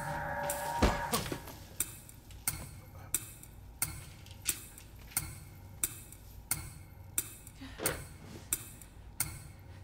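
A clock ticking steadily, about three ticks every two seconds. A heavy thump comes just under a second in, as a held music chord cuts off.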